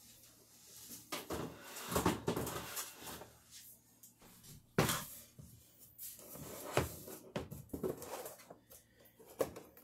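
Rummaging in a refrigerator: items shifted on the shelves and a plastic storage container of celery lifted out and handled, with several scattered knocks and clunks, the loudest about five seconds in.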